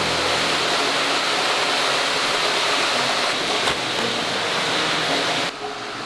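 Chamber vacuum packing machine: its pump hum winds down in the first second, leaving a steady, loud hiss that cuts off shortly before the end.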